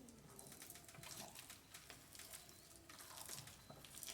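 Faint stirring of a soft mashed-plantain and flour dough with a spoon, with light scattered clicks.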